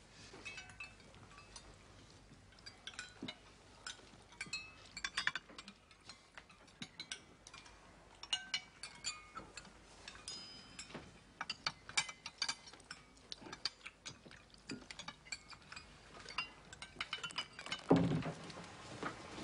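Spoons clinking against soup plates and glassware at a dinner table: scattered light clinks, many with a short ringing tone. A louder dull thud near the end.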